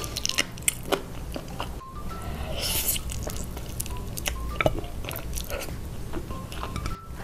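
Mouth sounds of eating sauce-glazed fried chicken: wet biting and chewing, with many short sharp clicks and smacks.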